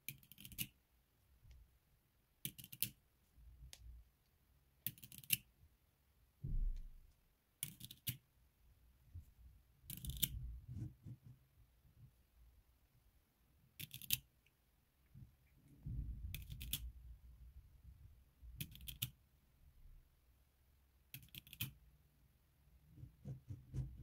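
Small magnetic balls snapping onto each other with sharp clicks, about every two to three seconds, as chains of balls are laid onto a cylinder built from them. Softer rubbing and handling noise fills the gaps between the clicks.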